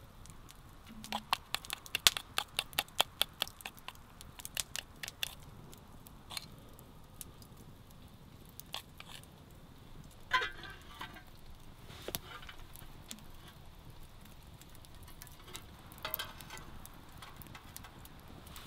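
Wood campfire crackling and popping, with a quick run of sharp clicks in the first few seconds and scattered pops after.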